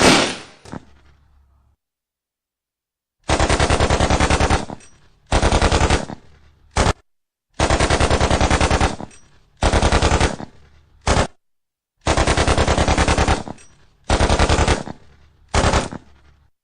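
Rapid bursts of sharp repeated impacts, like machine-gun fire: three rounds of a long burst, a shorter one and a very short one, each trailing off in an echo.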